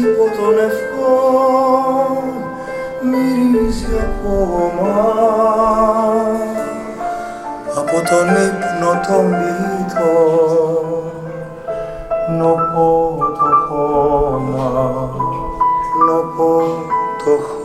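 A song played over a high-end hi-fi system: a singing voice holds wavering notes over an instrumental accompaniment.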